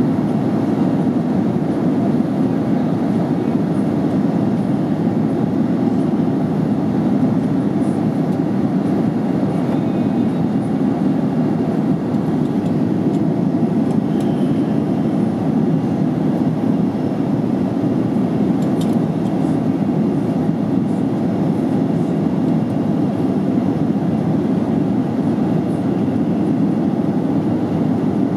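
Steady cabin noise of a jet airliner in flight: the engines and rushing air make an even, dense low rumble that does not change.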